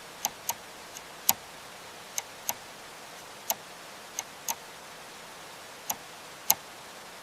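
Sparse raindrops dripping: about a dozen light, irregularly spaced ticks over a faint steady hiss.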